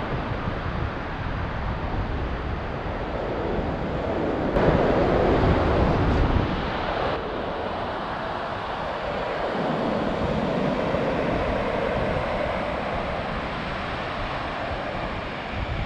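Surf washing on a sandy beach with wind buffeting the microphone, swelling louder for a couple of seconds around five seconds in.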